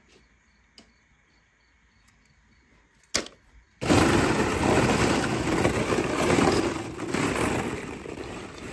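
Hollow plastic ball-pit balls rustling and clattering against each other as a hand digs through them. It starts about four seconds in, after a near-quiet stretch broken by a sharp click.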